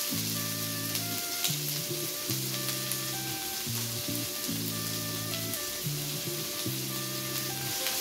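Chopped onion sizzling in hot oil in a nonstick wok, with light scrapes and taps of a spatula as it is pushed in and stirred. Soft background music with sustained chords runs under it.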